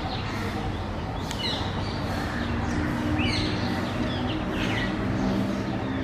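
Common myna calling: a run of short chirps and quick falling whistles, with a steady low hum underneath through the second half.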